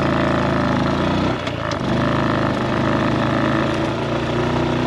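Honda Super Cub's single-cylinder four-stroke engine running steadily under way. It dips briefly about a second and a half in, then picks back up.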